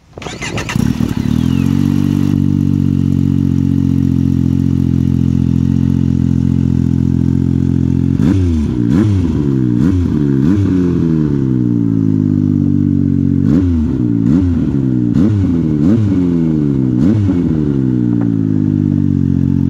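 Turbocharged 998 cc three-cylinder snowmobile engine with a Turbo Dynamics Turbo Force muffler catches and settles into a steady idle. It is given two runs of quick throttle blips, the first about eight seconds in and the second about thirteen seconds in.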